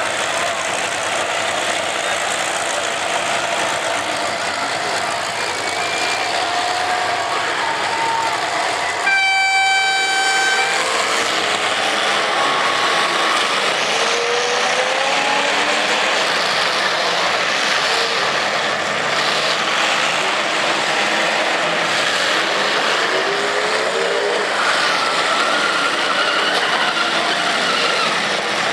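Demolition derby cars' engines running and revving, with pitch glides rising and falling over a dense steady noise. About nine seconds in, a single long blast of an air horn sounds for nearly two seconds.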